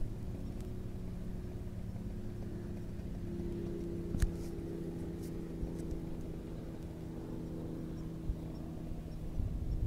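Paramotor engine running steadily at a distance, its pitch stepping up slightly about three seconds in. Low rumble of wind on the microphone, and a sharp click about four seconds in.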